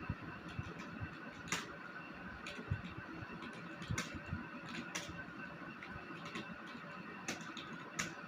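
Computer keyboard being typed on: a stream of irregular key clicks, a few sharper strokes standing out, over a steady background hum.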